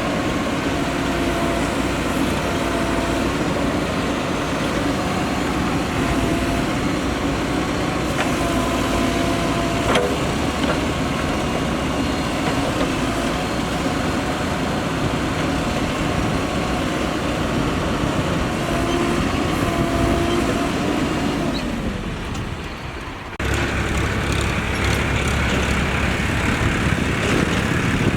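Mahindra Earthmaster SX backhoe loader's diesel engine running under working load, with a single sharp knock about ten seconds in. Near the end the engine note falls and drops in level, then the sound changes suddenly to a deeper engine rumble.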